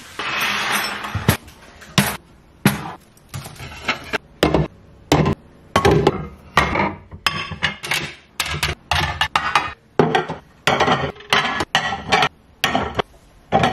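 Ceramic and glass bowls and plates being set down and stacked on a wooden cabinet shelf: a long run of sharp knocks and clinks, with a brief rustle and scrape at the start.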